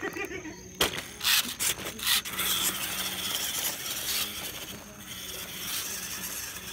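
A few sharp knocks, then the whirr of a toy 4x4 RC rock crawler's small electric drive motors and gears as it grinds over stone, fading somewhat after about four seconds.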